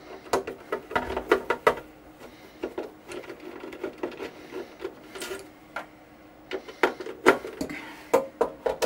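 No. 2 Phillips screwdriver backing screws out of a sheet-metal equipment case, with quick irregular metal clicks and short scrapes as the screws turn and are handled.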